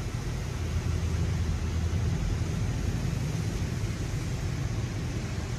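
WashWorld Razor Edge touch-free automatic car wash working over the car, heard from inside the cabin: a steady low rumble with an even hiss, without breaks.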